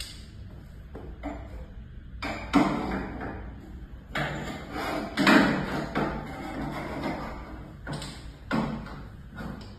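Metal frame and shelves of a collapsible camera cart knocking and rattling as they are handled and pressed into place, an irregular run of knocks with the loudest about two and a half and five seconds in.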